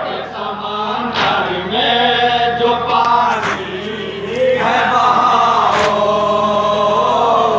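A group of men chanting together in unison in long, held sung lines, with a few short breaks between phrases.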